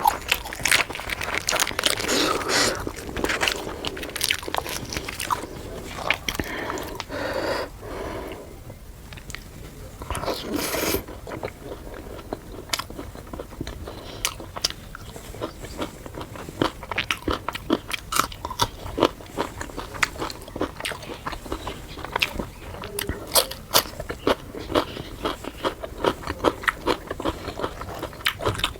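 Close-miked ASMR eating: biting and chewing puri with chicken curry, a steady run of short mouth clicks and crunches.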